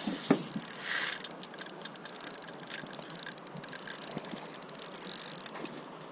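Fishing reel clicking rapidly and unevenly, with a single knock just after the start; the clicking stops near the end.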